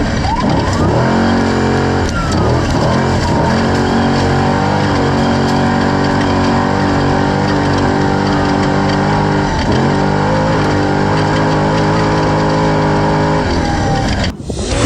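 Off-road race vehicle engines: rising and falling revs in the first couple of seconds, then one engine holding a steady note with a brief dip partway through. The sound cuts off suddenly near the end.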